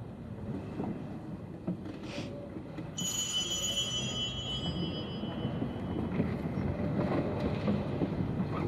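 Low, echoing rumble of a congregation shifting and murmuring in a large church. About three seconds in, a high held note with overtones starts suddenly and fades out over the next few seconds.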